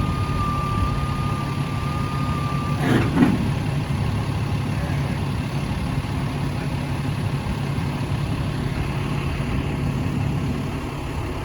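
Heavy tow truck's diesel engine running steadily while powering the lift of a concrete mixer truck. A steady high tone sounds over it for about the first three seconds, and a brief loud sound breaks in about three seconds in.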